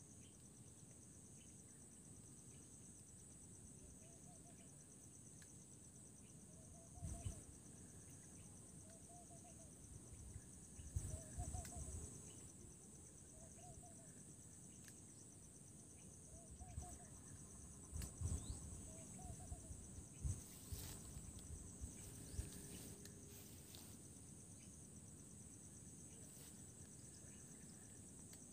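Faint steady high trill of crickets, with a bird's short call repeating about every second and a half through the first two-thirds. A few low gusts of wind buffet the microphone.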